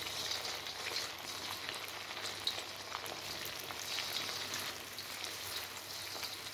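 Egg-and-cornflour-coated chicken strips deep-frying in hot oil in a wok: a steady sizzle full of small crackles and pops as more strips are lowered in one by one.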